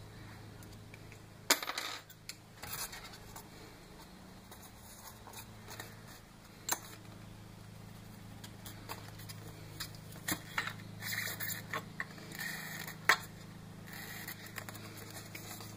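Scattered clicks, taps and scrapes of hands working on a foam toy airplane on a wooden workbench, adding weight to its nose, with a cluster of sharper clicks late on, over a steady low hum.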